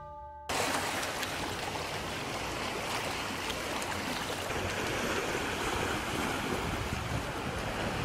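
Small sea waves washing in over a rocky, stony shore: a steady rushing wash that starts abruptly about half a second in.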